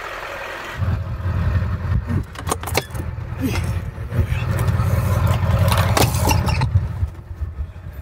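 Low rumble of wind buffeting the microphone, starting about a second in and easing near the end, with several knocks and clunks of boots on the snowy wooden steps up to the camper door.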